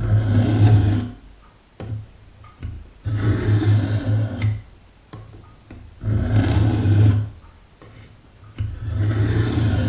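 Steel knife blade drawn along the sharpening stone of a Work Sharp guided sharpening system: four strokes, each about a second long, roughly three seconds apart.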